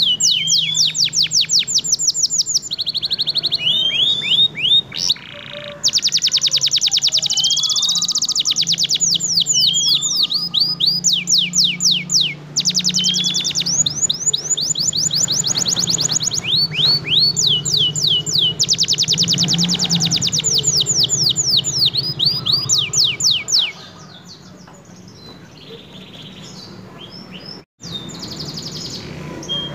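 Domestic canary singing a long, loud song of fast rolling trills: runs of rapid, repeated downward-sweeping high notes with a few rising slurs. The song stops about three-quarters of the way through, leaving only faint sounds.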